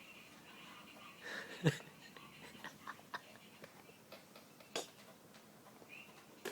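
Snoring: one loud snore about a second and a half in, its pitch falling, amid softer breathing and a few small clicks.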